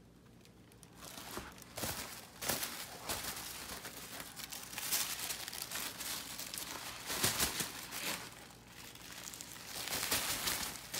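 Brown kraft paper bags being crumpled and rustled by hand: irregular crinkling that starts about a second in and comes and goes in louder handfuls.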